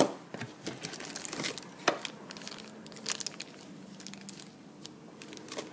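Thin plastic packaging bag crinkling and rustling as it is handled, in short irregular crackles. There is a sharp knock at the very start and another about two seconds in.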